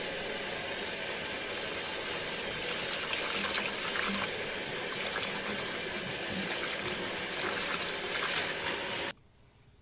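Tap water running steadily into a sink, stopping abruptly near the end, leaving faint dripping.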